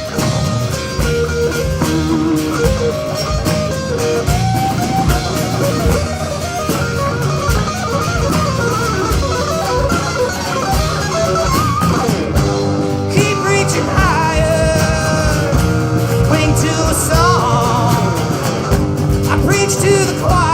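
Live rock band playing an instrumental break: drums and bass keep a steady beat under guitars, with a lead line of bending, gliding notes above.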